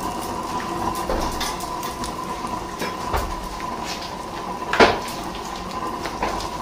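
A laptop burning in open flames, crackling and snapping irregularly, with one sharp, loud crack just before five seconds in.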